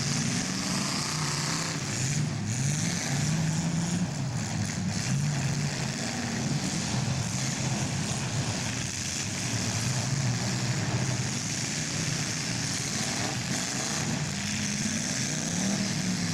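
Big-car demolition derby engines running and revving unevenly, their pitch rising and falling continually.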